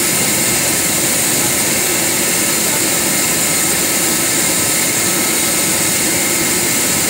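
Boeing 737 Business Jet's CFM56-7 turbofan engines running at idle on the apron after pushback: a steady rushing hum with a thin, constant high whine.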